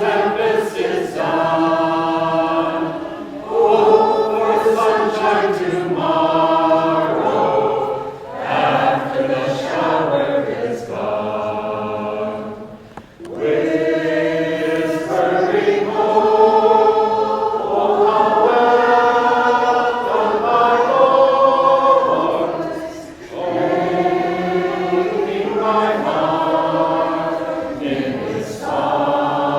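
A small vocal group singing a song together, in sustained phrases of a few seconds with short breaks between them.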